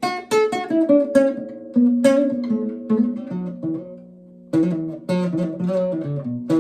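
Guitar melody of single notes plucked with the thumb: a quick run of notes, a held note left to fade, then a new phrase starting about four and a half seconds in.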